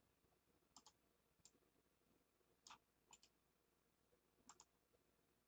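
Faint computer mouse clicks, a handful spread over a few seconds, several in quick pairs like double-clicks.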